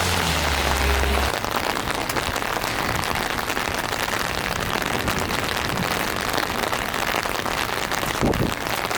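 Steady, consistent rain falling, heard as an even hiss. A low hum underneath stops about a second in.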